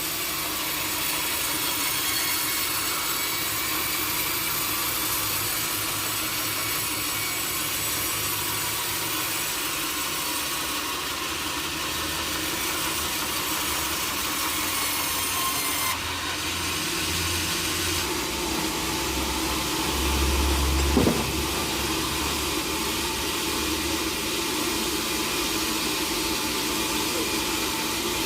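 Sawmill saw running and cutting teak wood, a steady mechanical noise with faint high whining tones. The sound changes briefly about 16 seconds in, and a low rumble with a short knock comes about 20 seconds in.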